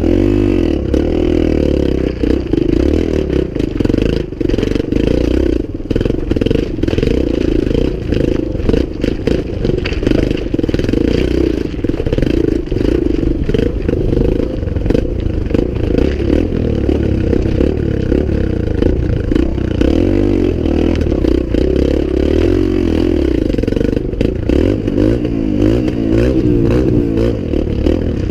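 Dirt bike engine running and revving, its pitch rising and falling, with frequent knocks and rattles.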